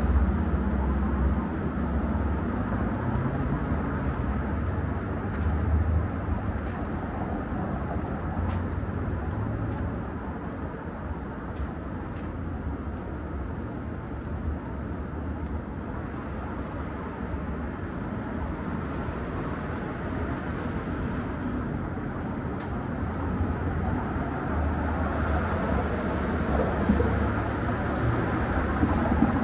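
Downtown city street traffic: a steady low rumble of passing vehicles that swells and fades, louder at the start and again near the end, with a few faint clicks.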